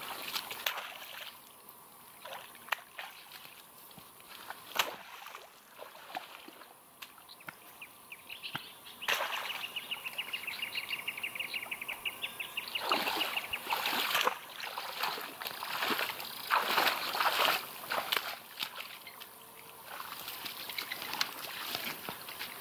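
Water splashing and sloshing, with scattered knocks. About nine seconds in, a high, rapid chirring lasts about three seconds.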